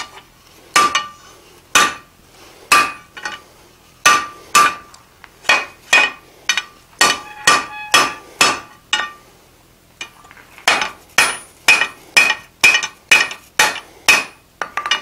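Hand hammer striking a red-hot iron bar on an anvil: repeated ringing blows, about two or three a second, upsetting the bar into a sharp square corner. The blows pause briefly about nine seconds in, then resume.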